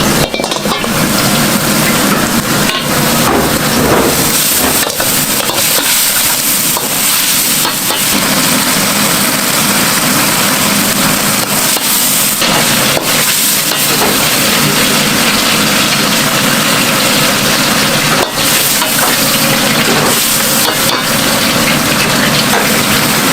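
Yakisoba noodles and seafood frying on a hot griddle: a loud, steady sizzle, broken by scattered sharp clacks and scrapes.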